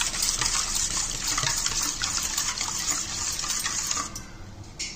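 Wire whisk beating a thin, runny curd batter in a stainless steel bowl: a fast, steady, splashy swishing of liquid that stops about four seconds in.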